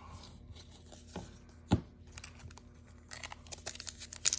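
A couple of light taps, then about three seconds in the crinkling and tearing of a foil trading-card pack wrapper being opened.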